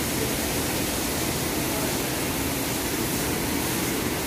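Steady, even rushing noise with no distinct events, the background roar of a cattle shed.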